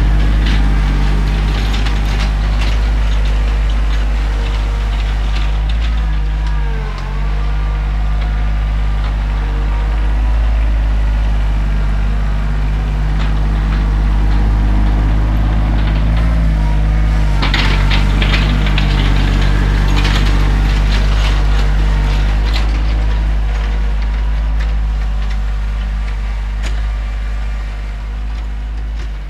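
John Deere 2025R compact tractor's three-cylinder diesel engine running steadily, with a short spell of clattering a little past the middle.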